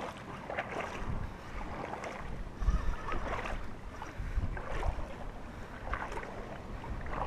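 Wind noise on the microphone, with scattered soft splashes and thuds of someone wading through mud and shallow water at a riverbank.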